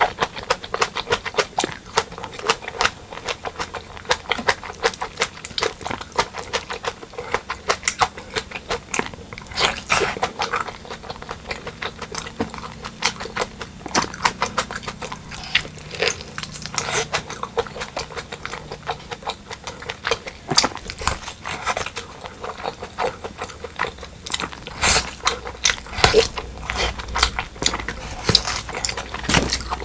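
Close-miked eating sounds of pork leg curry with white rice: a steady stream of wet chewing clicks and lip smacks.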